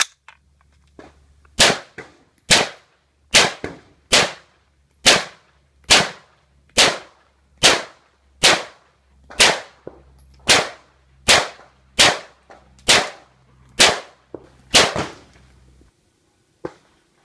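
Gunshots from a semi-automatic firearm, about sixteen rounds fired at a steady pace of a little under one a second, each crack followed by a short ringing tail. A single fainter shot follows near the end.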